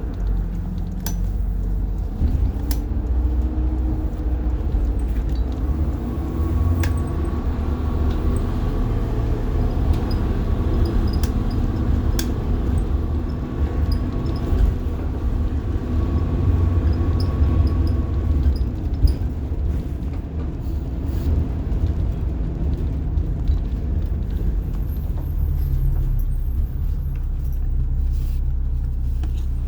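Rear-mounted diesel engine of a 1990 Blue Bird All American school bus running as the bus drives, a steady low drone heard from the driver's seat, with light clicks and rattles from the bus.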